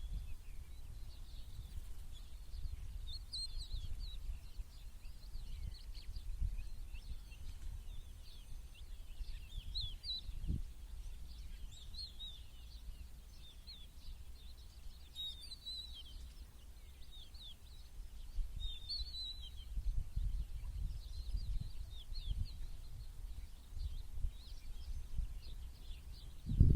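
Small birds chirping and twittering, many short high calls overlapping throughout, over a steady low rumble.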